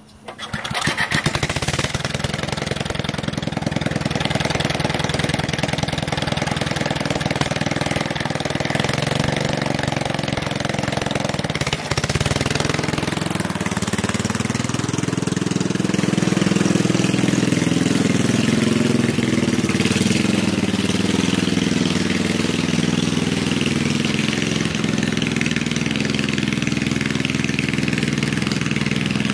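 Ariens Emperor riding mower's 6-horsepower engine running with its muffler off. It comes in suddenly at the start and runs steadily. About twelve seconds in it briefly dips, then its pitch climbs and holds higher as the mower drives off.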